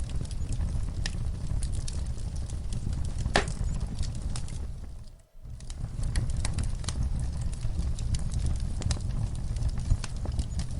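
Wood fire in a fireplace crackling, with scattered sharp pops over a low steady rumble and one louder pop a few seconds in. About halfway through, the sound briefly fades almost to nothing and comes straight back.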